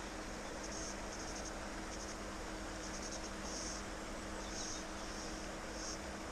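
Insects chirping in the grass: short high chirps, some of them quick trains of pulses, repeating every second or so over a steady hiss and a faint low hum.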